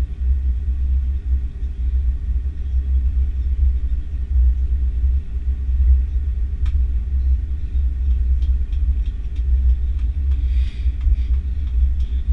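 Steady low rumble inside the cabin of an Airbus A330-300 with Rolls-Royce Trent 700 engines, from the engines and airframe on the ground, with a few faint clicks near the middle and toward the end.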